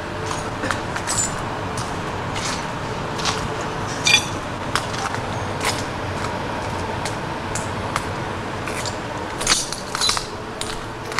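Footsteps crunching over broken glass and debris: irregular sharp clinks and crunches over a steady hiss.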